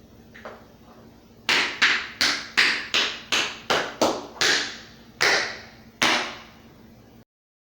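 Tap shoes' metal taps striking the floor in a rhythmic sequence of about eleven sharp taps, quick and even at first, then spacing out into a few slower final strikes.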